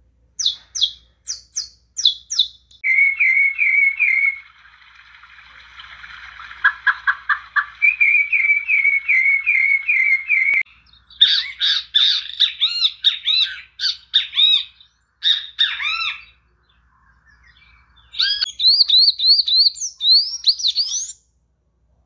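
Saffron finch singing, first sharp high descending notes, then repeated trilled phrases. About ten seconds in it cuts to a great kiskadee calling its repeated 'bem-te-vi'. After a short pause, a sayaca tanager sings a quick run of high rising notes near the end.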